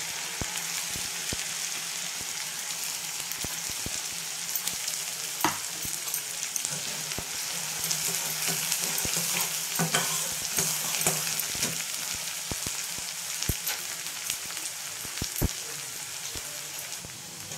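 Ground onion, green chilli, ginger and garlic sizzling in hot mustard oil in a metal kadhai, stirred with a metal spatula. A steady sizzle with now-and-then clicks and scrapes of the spatula against the pan.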